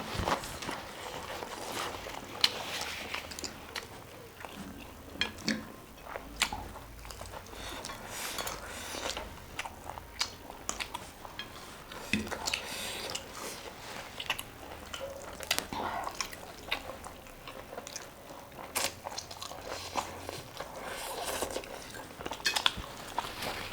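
Close-miked eating: chewing and crunching food in irregular bites, with scattered sharp clicks.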